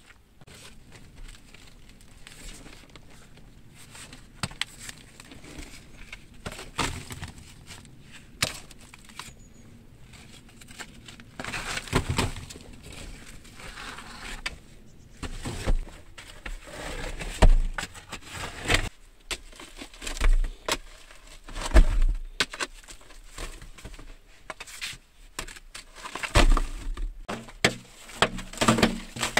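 A hand tool chipping and scraping at a soft white rock wall, digging out a cave, with fragments crumbling and falling. The knocks come irregularly, sparse at first and then louder and more frequent after about ten seconds.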